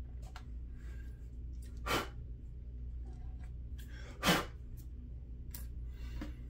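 Two short, sharp bursts of breath close to the microphone, about two seconds apart, the second one louder, with a few faint clicks of small parts being handled.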